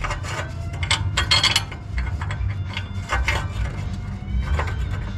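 Irregular metal clinks, rattles and scrapes of an exhaust pipe and its fittings being worked into place by hand, over a steady low hum.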